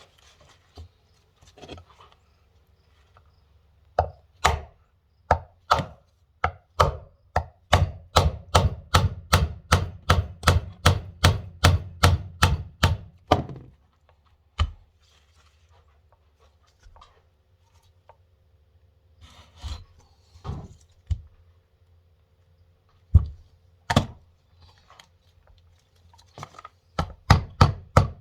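Hammer blows on the bottom cap of a Mahindra 5010 front final drive, knocking it off; the cap is being wrecked in the process. A quick run of sharp strikes, about two to three a second, then a few single blows, then another quick run near the end.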